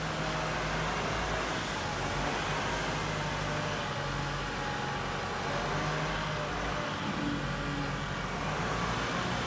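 Compact tractor engine running steadily under load while its front loader pushes sand and debris, with the engine pitch shifting up and down a little.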